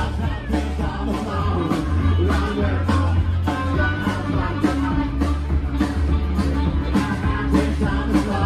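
Live pop-rock band playing through a PA: a steady drum beat, heavy bass and electric guitar, with a woman singing over it.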